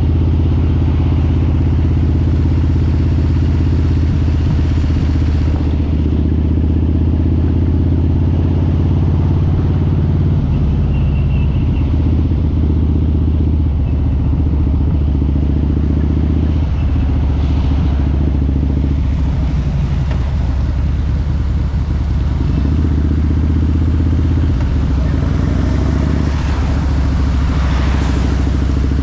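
Harley-Davidson V-twin motorcycle engine running at a low, steady riding pace, its deep drone changing pitch a few times as the speed shifts. Tyres hiss on the wet road underneath.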